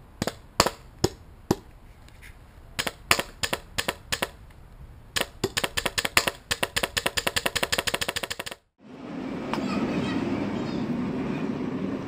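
Air-hose-fed wrist-mounted airsoft gun firing: four single shots, then a quick string of about eight, then a rapid automatic burst lasting about three seconds. After a sudden cut, a steady noisy rumble.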